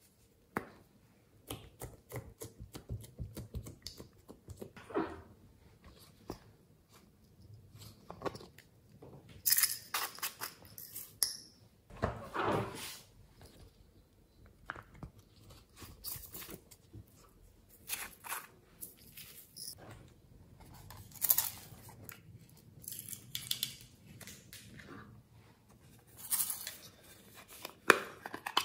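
Hands handling plastic and squishy toys: an irregular run of clicks and taps with a few short, louder rustling noises.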